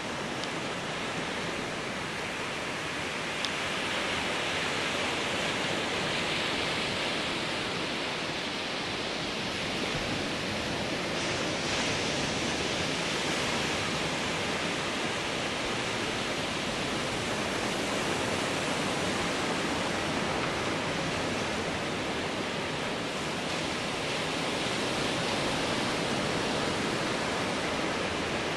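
Ocean surf breaking and washing up the beach, heard as a steady rushing hiss that swells and eases slowly.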